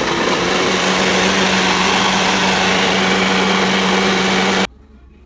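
Nutribullet blender motor running at full speed, blending banana, berries, pear, spinach and ginger into a smoothie. It runs loud and steady, its hum settling slightly lower in the first second, then cuts off suddenly about four and a half seconds in.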